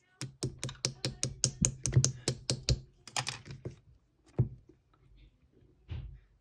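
Clear slime being pressed and squished by hand, giving a fast run of sharp clicking pops, about five a second, for the first three seconds, then a few single pops.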